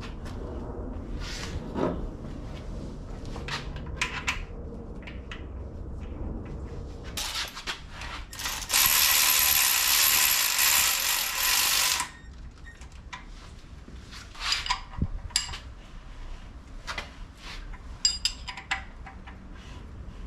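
Hand ratchet clicking in irregular runs as the Northstar V8's crankshaft is turned over by hand to bring it to the top position for timing. A loud steady noise of about three seconds comes in the middle.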